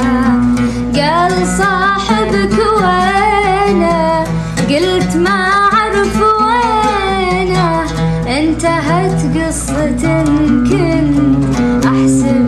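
A woman singing an Arabic song in long, wavering, ornamented phrases over backing music.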